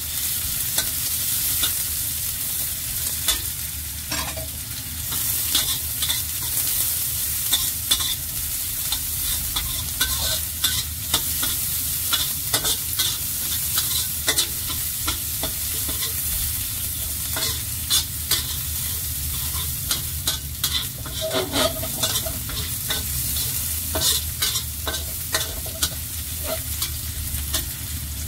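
Sliced shallots, garlic and ginger sizzling in hot oil in a stainless steel wok, stir-fried with a metal spatula that clicks and scrapes against the wok again and again.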